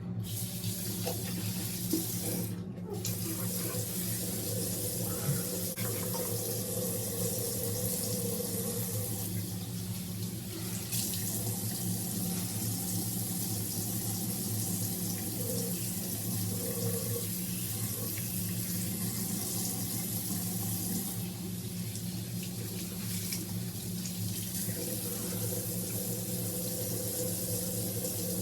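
Bathroom sink tap running steadily, water pouring into the basin during face washing.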